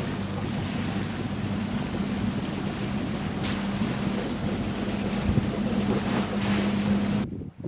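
A boat's motor running steadily with a low hum, with wind rumbling on the microphone; the sound cuts off abruptly near the end.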